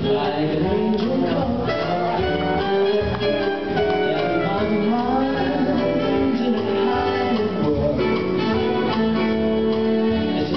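Music: a song with a singing voice over instruments, playing steadily.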